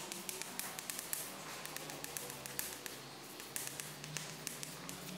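Chalk writing on a blackboard: quick irregular taps and scratches as letters are stroked on, over a faint steady background.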